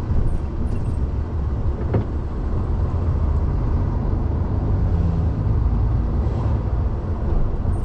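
Steady low rumble of an articulated lorry's diesel engine and tyres on the road, heard from inside the cab while driving. There is a single sharp click about two seconds in.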